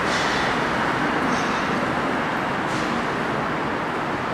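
Steady city road traffic noise, an even rumble and hiss with no distinct events.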